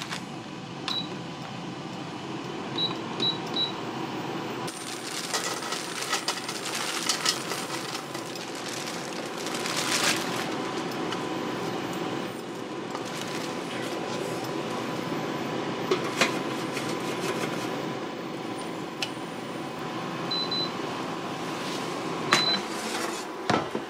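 Steady fan noise from a preheating air fryer, with short electronic beeps from appliance control panels, a few near the start and a couple near the end. Scattered light clatter and rattles come from frozen fries being dropped into a pan.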